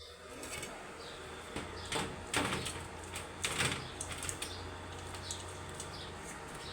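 A few short clattering knocks, the loudest between about two and four seconds in, with faint bird chirps and a steady low hum behind them.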